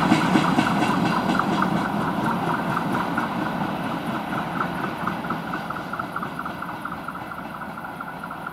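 Freight train of covered grain hopper wagons rolling away on the track, the wheels clicking in a steady rhythm of about four a second, fading as the train recedes.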